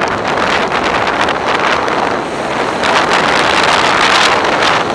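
Wind rushing over a skier's action-camera microphone, mixed with skis hissing and scraping over packed snow, loud and rising and falling in surges as the skier turns downhill.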